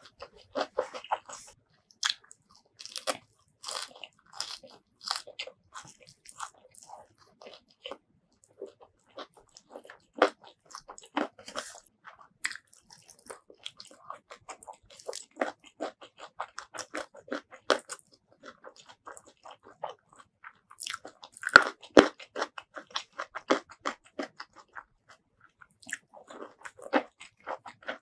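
Close-miked chewing and biting of a handful of rice and sambal with crunchy raw vegetables: irregular wet crunches and crackles, with one sharp, loud crunch a little past the middle.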